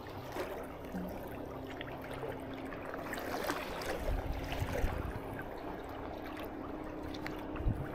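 Seawater sloshing and gurgling among concrete wave-breaking tetrapods, with gusts of wind on the microphone, over a steady low hum.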